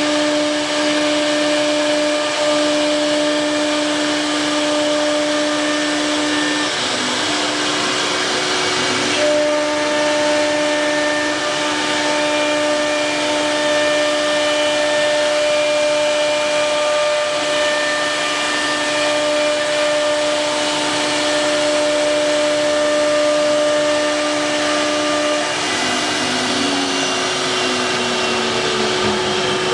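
4.5 kW CNC wood router running, its spindle giving a steady whine over a noisy rush, with motor tones that stop, start and shift in pitch as the machine moves; near the end several tones slide in pitch.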